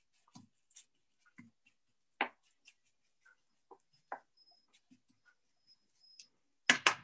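Wooden spatula stirring curry paste in a wok, giving scattered soft knocks and scrapes against the pan, the clearest about two seconds in and a louder one just before the end.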